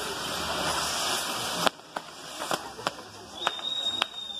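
Fireworks hissing, growing louder over the first second and a half, then a string of about six sharp bangs. A high steady whistle starts near the end.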